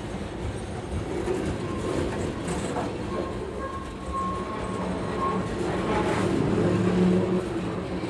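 Freight cars, tarp-covered centerbeam flatcars, rolling past close by: a steady rumble of steel wheels on the rails with a few clicks over the rail joints, and a faint thin wheel squeal for a few seconds in the middle.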